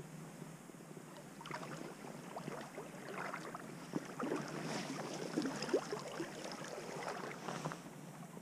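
Water sloshing and splashing as legs wade through a shallow creek, in irregular splashes that build up after a second or so and ease off near the end.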